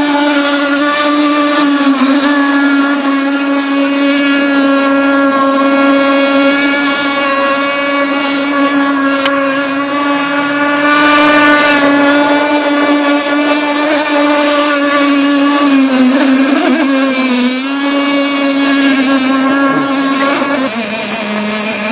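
OS Max 50SX Hyper Ring two-stroke glow engine, a helicopter engine converted for marine use, running at high, steady revs in a Seaducer Mono RC speedboat: a loud, high buzzing whine. The pitch wavers briefly about two-thirds of the way in and drops near the end.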